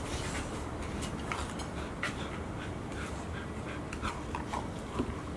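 Golden retriever puppies play-fighting: scuffling, paws on a hard floor and short dog noises, heard as scattered irregular ticks and brief sounds.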